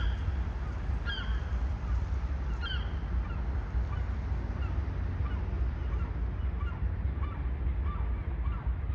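Geese honking repeatedly over a steady low rumble. The calls are loudest in the first few seconds, then come fainter and more often.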